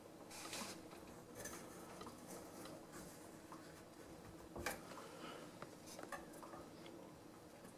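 Faint sounds of a chef's knife cutting a slice of baked egg custard tart: soft scraping as the blade goes through the pastry and small taps on the wooden board, with the sharpest knock about four and a half seconds in.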